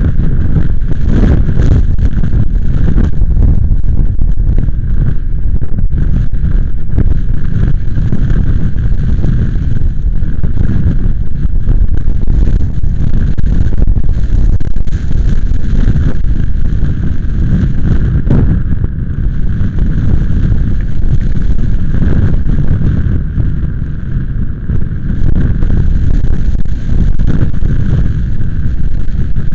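Strong gusty storm wind buffeting the microphone: a loud, low rumbling noise that surges and eases, dipping a little around two-thirds of the way through.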